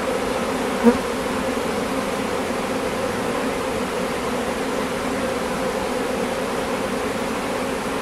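A swarm of honey bees buzzing steadily around a hive entrance as they walk in, with one brief louder buzz about a second in as a bee passes close.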